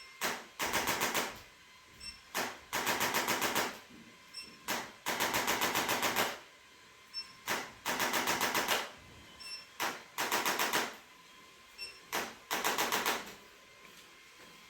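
Rapid percussive tapping in six repeated bursts, each a single sharp tap followed by about a second of quick strikes at roughly ten a second.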